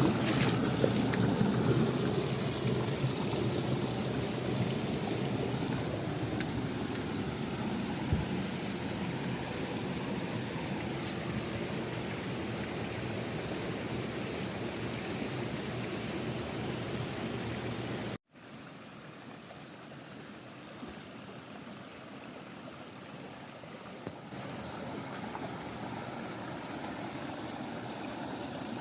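Steady rush of a forest waterfall and stream. About two-thirds of the way through it breaks off for an instant, then comes back quieter and thinner, with less low rumble.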